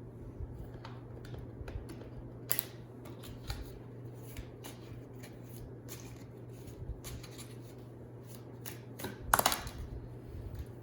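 Tarot cards being handled and shuffled: scattered light snaps and rustles, with a louder burst of card noise near the end, over a low steady hum.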